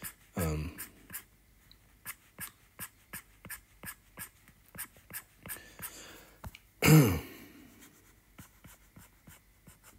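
Stylus tip tapping and scratching on an iPad's glass screen in short drawing strokes, about two to three clicks a second. About seven seconds in, a short hummed vocal sound falling in pitch cuts in, the loudest thing here.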